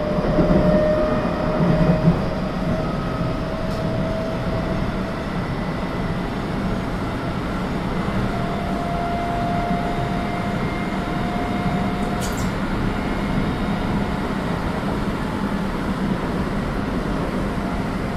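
Keio 8000 series electric train running between stations, heard from inside motor car DeHa 8011: a steady rumble of wheels on rail with faint whining tones from the traction equipment. There are a few heavier thuds in the first couple of seconds and a short click about twelve seconds in.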